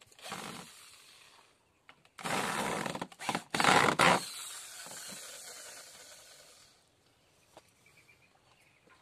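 Handheld corded electric drill boring into the hardwood frame of a stool: a short run near the start, then a longer, louder run broken by brief pauses from about two to four seconds in, after which it runs lighter until it stops near seven seconds.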